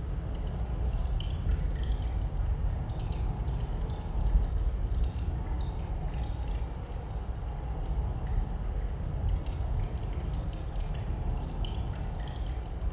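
Cave ambience: water dripping at irregular intervals, many small drips, over a steady low rumble of wind.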